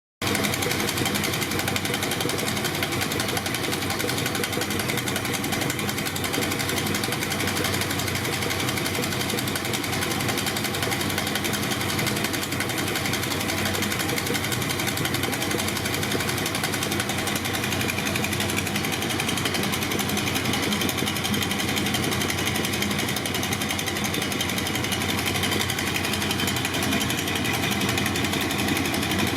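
BMW R60/7's air-cooled flat-twin boxer engine running at a steady speed, its fast, even beat holding unchanged throughout.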